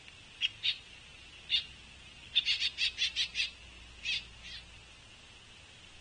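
Juvenile pileated woodpecker giving short, hoarse begging calls to be fed: a couple of single calls, then a quick run of about seven, then two more.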